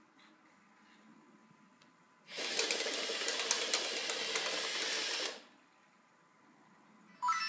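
Lego Mindstorms EV3 robot's motors and plastic Technic treads clattering as it drives and turns on a wooden floor for about three seconds, starting about two seconds in. Near the end comes a short rising electronic beep.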